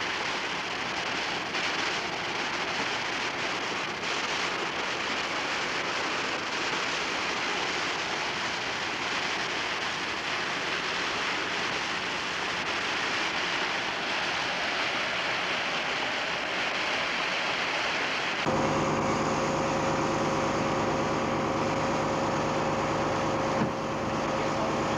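A steady hiss. About three-quarters of the way in it cuts off suddenly and gives way to the steady drone of a fishing boat's engine running.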